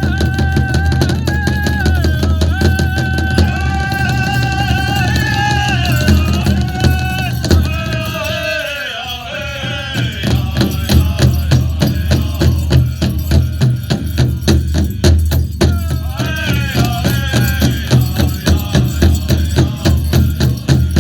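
Pow wow drum and singers: a big drum beaten in a steady fast beat while the singers hold high chanted lines that slide downward and drop out about nine seconds in, leaving the drum alone until the high singing comes back near sixteen seconds.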